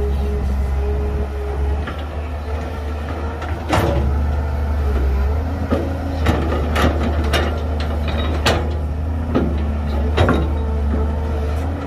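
Heavy diesel earthmoving machinery running with a steady low drone and a wavering whine, with sharp knocks now and then: one about four seconds in, then several more in the second half.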